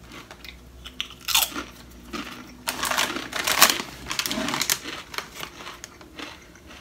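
Crunchy sriracha-ketchup chips being bitten and chewed, with crisp crackling strokes that are loudest about three seconds in. The foil-lined chip bag crinkles as a hand reaches into it.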